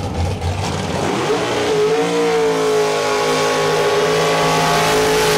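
Drag car's engine rumbling low, then revving up about a second in and held at high revs during a burnout, with the spinning rear tyres hissing under it.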